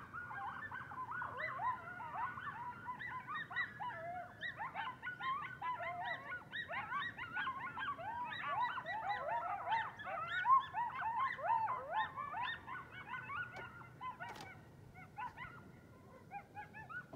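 A band of coyotes howling together in a chorus of many overlapping short rising-and-falling calls, thinning out over the last few seconds.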